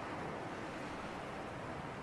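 Sea breeze by the shore: a steady, even rush of wind and surf with no distinct wave break or other event.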